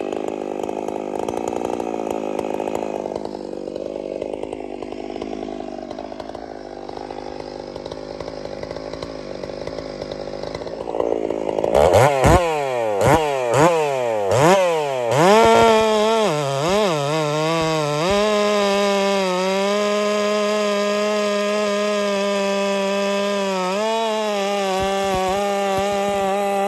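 Two-stroke chainsaw idling, then revved up and down several times, then held at full throttle as it cuts through a large hardwood log, the engine note steady under load.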